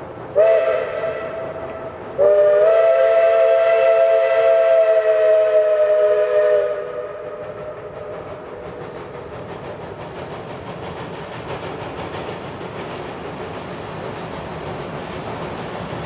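Steam locomotive whistle sounding a chord of several notes: a short toot about half a second in, then a long blast of about four seconds. After it comes a steady rushing rumble from the approaching locomotive, slowly getting louder.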